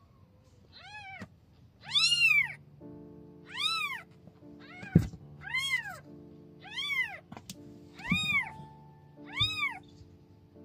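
Newborn kitten meowing repeatedly: about eight short, high-pitched cries, each rising and falling in pitch, over soft background music. A brief thump comes about five seconds in.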